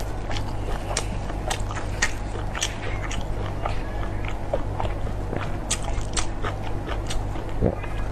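Close-miked biting and chewing of a crispy deep-fried roll: an irregular run of sharp crunches and wet mouth clicks over a steady low hum.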